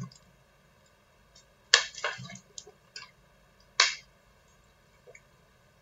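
A few scattered sharp knocks and clicks, the loudest two about two seconds and four seconds in, with near quiet between them.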